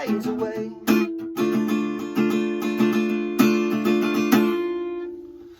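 Acoustic guitar strumming the song's closing chords; the last chord rings on and fades out near the end.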